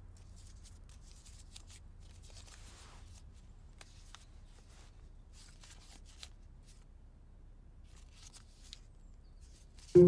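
A small piece of paper crinkling and rustling as it is unfolded in the hands, in faint, scattered crackles. Loud music with ringing mallet-percussion tones cuts in at the very end.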